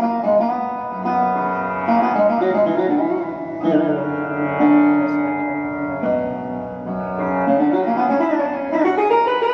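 Live Indian song music: a flowing melody with a sitar-like plucked-string sound over held accompanying notes, with no breaks.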